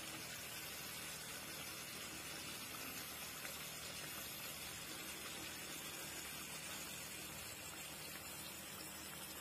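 Steady faint hiss with a low hum underneath.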